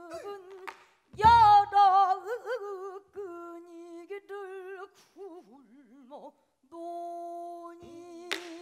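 Female pansori singer singing a sorrowful passage in gyemyeonjo mode: long held notes with a wide, wavering vibrato. The buk barrel drum gives a low thump about a second in and a sharp knock near the end.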